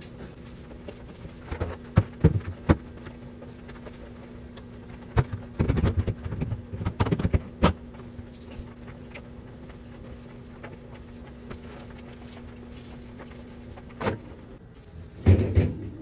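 Refrigerator shelves and plastic drawers knocking and clattering as they are handled and set in place, in scattered groups of knocks about two seconds in, from about five to eight seconds, and again near the end. A steady low hum runs underneath and stops about fourteen seconds in.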